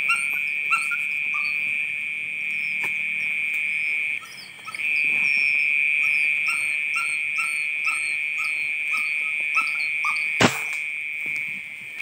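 Night insect chorus: a steady high-pitched drone, with a short falling chirp repeated about two to three times a second over it. About ten and a half seconds in there is a single sharp crack, the loudest sound here.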